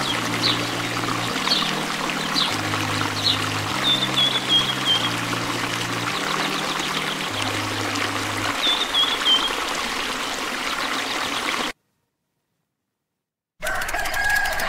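A thin stream of water pouring and trickling steadily into a small plastic tub already holding water. About twelve seconds in, the sound cuts out completely for a couple of seconds, then resumes.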